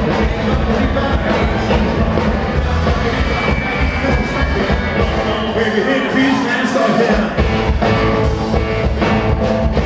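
Rockabilly band playing live, with upright double bass, drums, electric guitar and keyboard. About six seconds in, the low bass and drum end drops out for roughly a second, then the full band comes back in.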